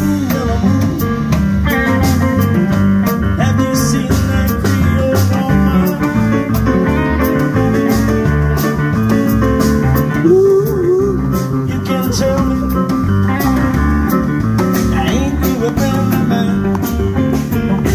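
Live blues band playing, with an electric upright bass and a Yamaha CP40 stage piano in the mix.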